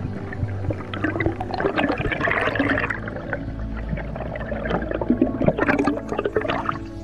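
Water gurgling and bubbling around an underwater camera just below the surface, crackly and uneven, loudest in two spells: one from about a second in and another around five seconds in, stopping shortly before the end.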